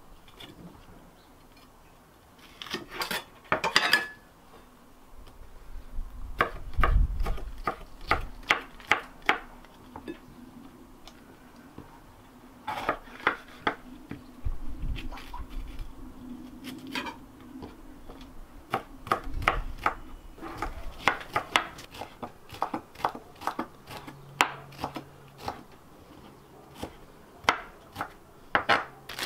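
Chef's knife slicing bell peppers on a wooden end-grain chopping board: quick runs of sharp knocks of the blade against the wood, with short pauses between the runs.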